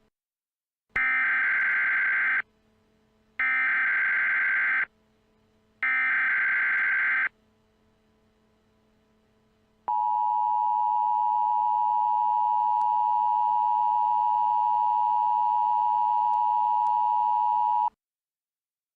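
Emergency Alert System tones for a National Periodic Test: three short bursts of SAME header data, warbling digital chirps about a second and a half each with a gap of about a second between them, then the steady two-tone attention signal, held for about eight seconds before cutting off.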